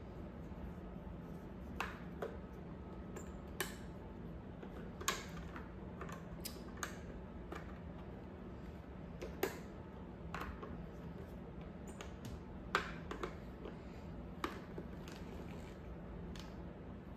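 Riddell Speedflex facemask clip and quick-release tool clicking and tapping against the helmet shell and facemask as the clip is worked into place: about a dozen short, sharp clicks at irregular intervals.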